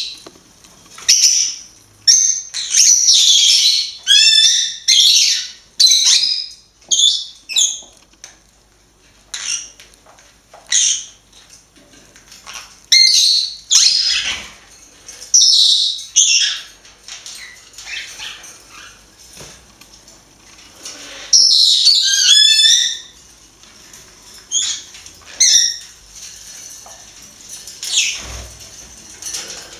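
Green-cheeked conures calling: repeated sharp chirps and squawks in short bursts every second or two, with two longer warbling runs of calls.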